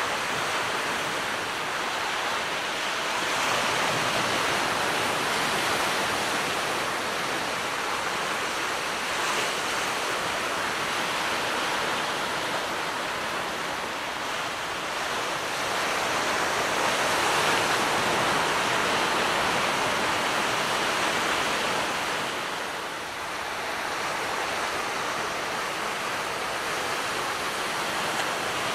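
Gentle surf washing onto the beach: a steady hiss of small waves that slowly swells and eases over several seconds.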